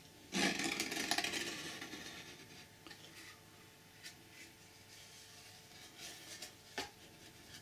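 Cardboard packaging rustling and scraping as a white card insert is lifted out of the camera box. It is loudest for a second or so and then fades, followed by a few light taps and clicks.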